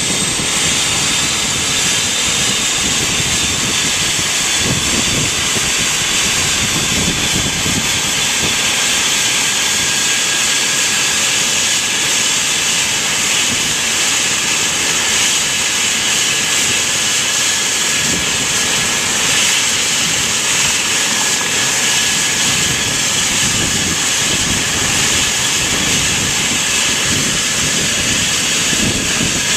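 Eurocopter EC135 helicopter's twin turboshaft engines running during start-up, a high turbine whine over a loud steady hiss. The whine rises in pitch over the first several seconds, then holds steady.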